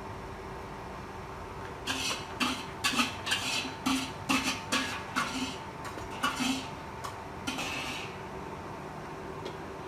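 Metal spatula scraping and knocking against a wok as fried rice is scooped out, about a dozen quick strokes that stop after some six seconds. A steady hum runs underneath.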